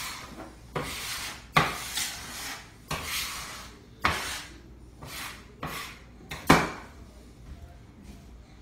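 A metal pastry scraper (bench knife) scraping across a countertop in a series of short strokes, gathering flour and dough scraps into a pile; the loudest scrape comes about two-thirds of the way through, and the strokes die away near the end.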